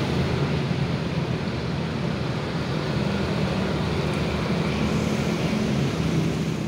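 Steady road traffic noise, with motorbike engines running past on a busy road.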